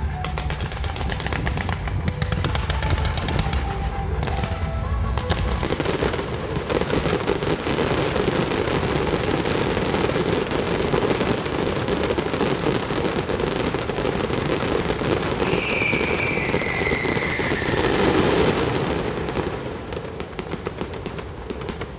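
Fireworks display going off: a dense, continuous crackle of bursts, with heavy low booms in the first few seconds and a falling whistle about three-quarters of the way through. The crackle thins out near the end.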